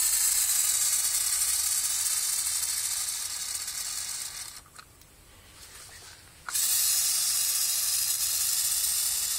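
Black Flag aerosol insecticide can spraying: a long, steady hiss that dies away about four and a half seconds in, then after a short pause a second long spray starting abruptly about six and a half seconds in.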